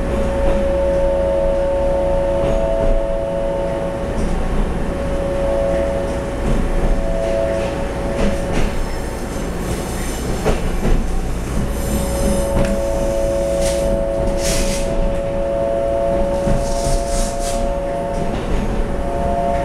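Interior sound of a TRA EMU700 electric multiple unit pulling away from a station: a steady rumble of the running train under a whine of steady electrical tones, which drop out for a few seconds in the middle and then return. Several brief high-pitched wheel squeals come in the second half.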